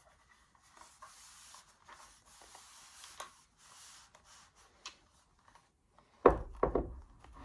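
Cotton-spandex sleeve sliding over a plastic training arm: a soft fabric swish for a few seconds with small clicks. A sudden loud thump of handling about six seconds in.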